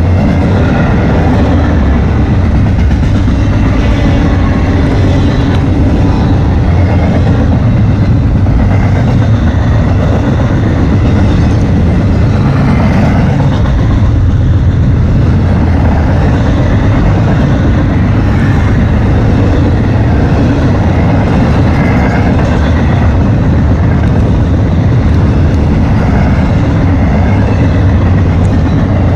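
Double-stack intermodal container train passing close by: a loud, steady rumble of well cars rolling over the rails, heaviest in the bass.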